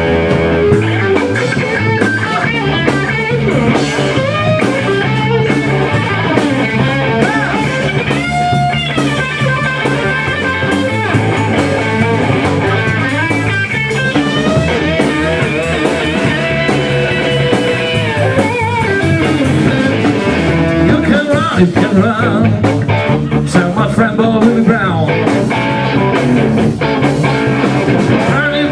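Live amplified rock band playing: electric guitars over a drum kit, with a lead line of bent, wavering notes.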